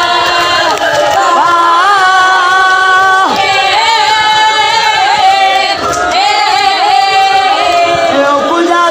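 A woman's voice singing a lament in long held, wavering notes, in the chanted style of a zakira's recitation at a mourning majlis.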